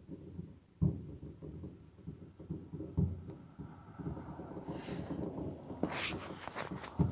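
Distant fireworks going off: dull low booms about a second, three seconds and seven seconds in, over a low rumble, with a stretch of crackling around five to six seconds in.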